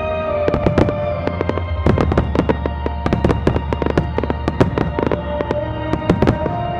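Aerial firework shells bursting in a rapid barrage, many sharp bangs a second, under music with long held notes.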